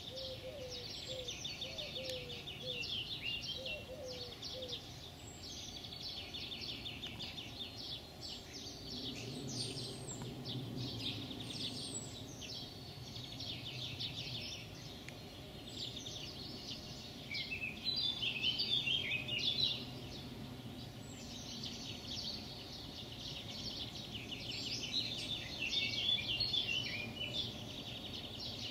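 Songbirds singing: one bird repeats fast, high trilled phrases a couple of seconds long, with other chirps between them. A short low note repeats several times in the first few seconds, and a faint low rumble runs through the middle.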